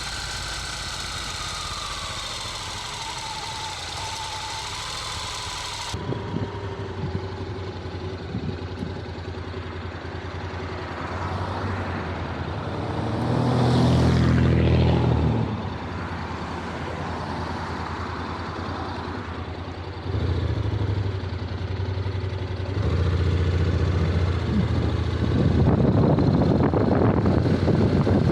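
Honda NC750X motorcycle's parallel-twin engine running at low speed, with one loud swell in the middle. The level steps up twice later on, and wind noise builds near the end.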